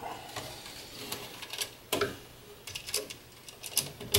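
Irregular small clicks and taps of hand work inside an electrical control panel. A wire is being pushed into place and a screwdriver is working a terminal screw on a contactor, with sharper clicks about two seconds in, about three seconds in and near the end.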